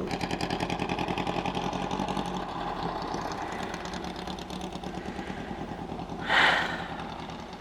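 Dune buggy engine running with a fast, even pulse as it goes by, slowly fading toward the end. A brief louder rushing burst about six seconds in.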